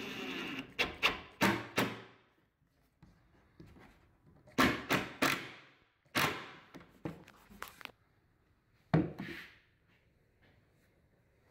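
Cordless impact driver sinking screws through wooden spacer blocks into a plywood cabinet. Its motor runs briefly at the start, then comes a string of short, sharp knocks on the wood in quick groups of three or four, and one last knock near the end.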